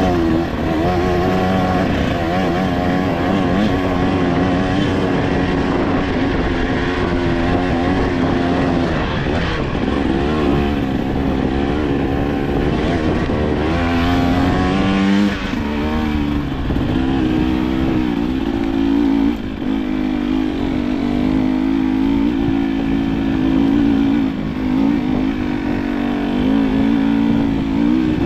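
Vehicle engine running under way, its pitch rising and falling repeatedly as it speeds up and slows.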